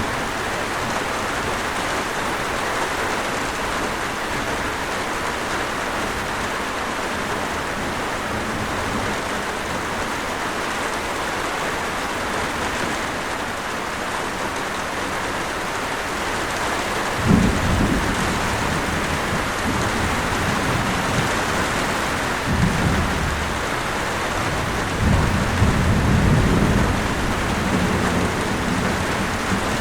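Steady rain falling, with low rumbles of thunder: one starting a little past halfway, and two more near the end.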